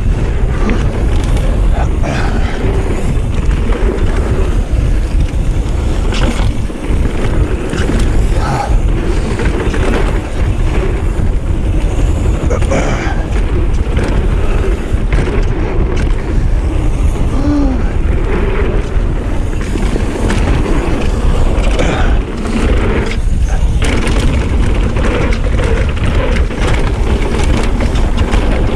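Mountain bike ridden fast down a packed-dirt flow trail: a steady loud rush of tyre roll and wind on the camera's microphone, with the bike's chain and frame clattering over bumps and berms.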